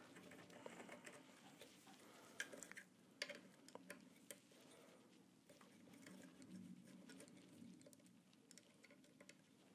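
Near-silent room tone with faint, irregular small clicks and ticks of a hex screwdriver turning the bolts out of a 3D printer's metal frame.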